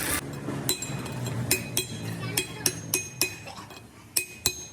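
Metal parts and tools clinking together during a truck axle repair: about ten light, ringing metal-on-metal strikes at an irregular pace. A low hum underneath fades out partway through.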